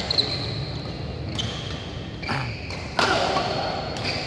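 Badminton rally: rackets striking the shuttlecock about five times, roughly once a second, the hardest hit about three seconds in, with short high squeaks of shoes on the court mat between shots. The hall gives the hits a slight echo.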